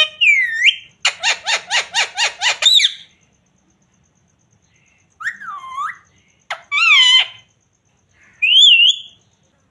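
Pet ringneck parrot calling and whistling: a quick run of about nine short repeated notes, then after a pause three separate gliding calls.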